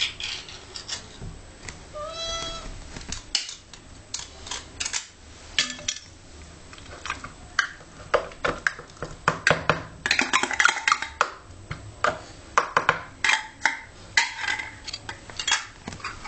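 Metal clinks and scrapes of a tin of cat food being opened and spooned into a bowl, coming thick and fast in the second half. A cat meows once, briefly, about two seconds in.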